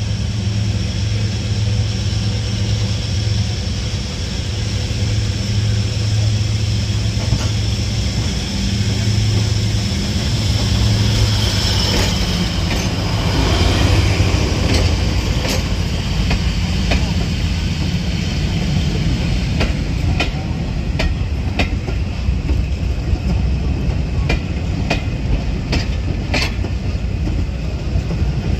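Heritage diesel locomotive running with a steady low hum, and a high whine that falls in pitch around the middle. From about two-thirds in, the train's wheels click over the rail joints as it moves.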